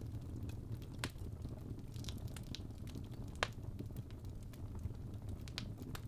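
Fire burning in a fireplace: a steady low rumble with a handful of sharp crackles and pops, the loudest a little over three seconds in.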